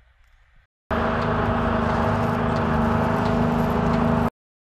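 Light armoured wheeled vehicle's engine running steadily with a constant hum as it drives through snow. It starts abruptly about a second in and cuts off suddenly near the end.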